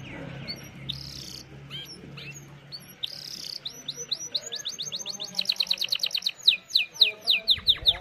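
Domestic canary singing: scattered short chirps at first, then from about halfway a fast, loud trill of rapidly repeated downward-sweeping notes.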